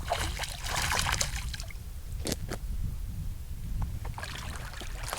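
Water splashing and sloshing beside a canoe in short bursts, over a steady low rumble.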